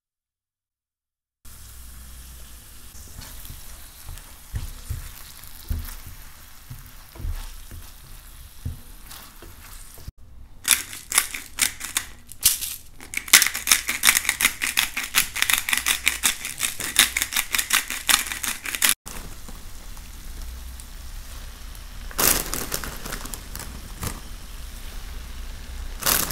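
Onion, garlic and tomato sauce sizzling in olive oil in a steel pan. About ten seconds in, a pepper mill grinds over it in a fast run of clicks for several seconds.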